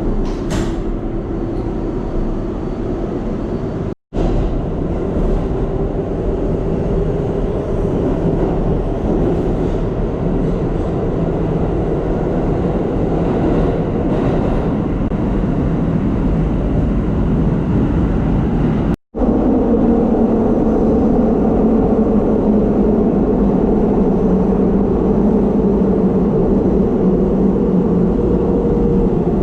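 New York City #7 subway train running, a steady rumble with a low motor hum. The sound cuts out for an instant twice.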